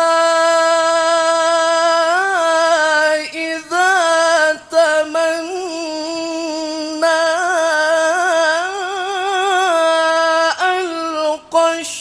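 A male qari's voice reciting the Quran in melodic tilawah style into a microphone. He holds long drawn-out notes on a single line, ornamented with quick wavering turns, with a few brief breaks between phrases.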